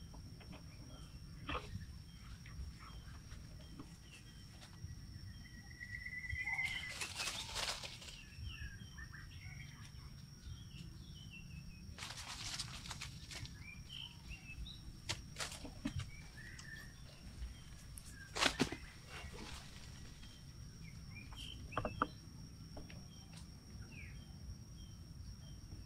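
Forest ambience: scattered short bird chirps over a steady high-pitched hum, with stretches of rustling in the leaves and dry leaf litter as macaques move through the undergrowth. A few sharp snaps cut through, the loudest about two-thirds of the way in.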